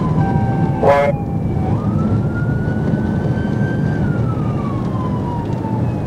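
Police cruiser siren in a slow wail: the pitch falls, jumps back up about two seconds in, climbs slowly and falls again, over a steady low rumble of engine and road noise. A brief loud blip sounds about a second in.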